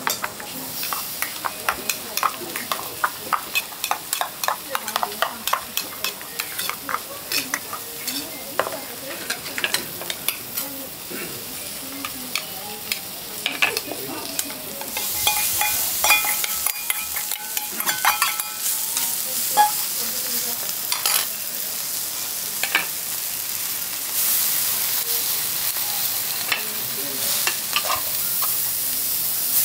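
Rapid clicking and scraping of a utensil against a small steel bowl as okonomiyaki batter and cabbage are mixed. About halfway through, a steady sizzle of food frying on the hot teppan griddle takes over and grows louder near the end.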